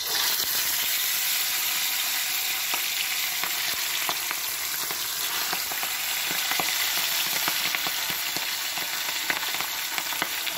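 Pieces of fish frying in very hot oil in an iron pan: a loud sizzle starts suddenly as they go in and holds steady, with many small crackles and pops through it.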